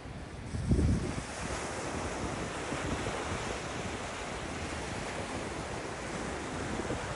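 Ocean surf breaking and washing onto a beach, a steady hiss of waves, with wind buffeting the microphone. A strong low gust about a second in is the loudest moment.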